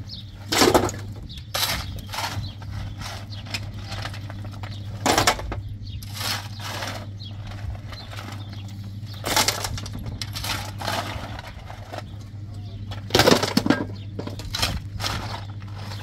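Steel shovel scraping into a pile of broken stones and tipping them into a steel wheelbarrow: a clatter of stones every one to three seconds, over a steady low hum.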